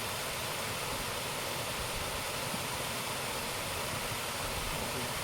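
Waterfall: falling water rushing in a steady, even roar of noise.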